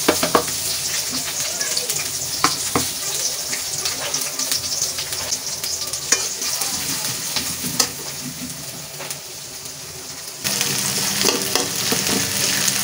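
Sliced shallots, garlic and chillies sizzling in hot oil in a metal wok, stirred with a metal spoon that clicks and scrapes against the pan now and then. The sizzle eases off a little about two-thirds of the way through, then picks up again near the end.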